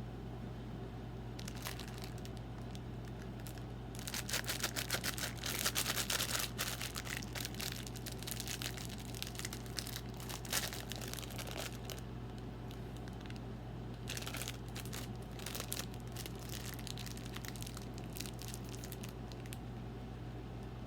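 Packaging crinkling and tearing in bursts, strongest about four seconds in and again around fourteen seconds, over a steady low electrical hum.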